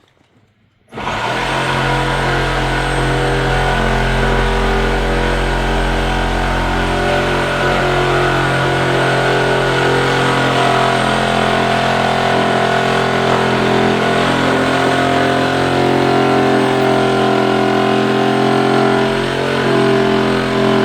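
A DeWalt power saw starts about a second in and runs without a break, cutting through a metal strip; its motor pitch shifts slightly as it works under load.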